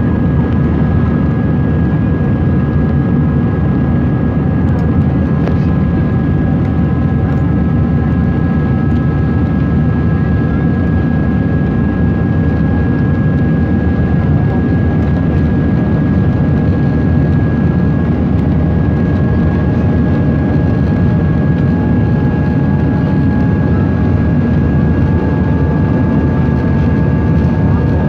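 Airbus A320 cabin noise by the wing during the climb: a steady, loud roar of engines and airflow, with a few steady high engine whine tones over it.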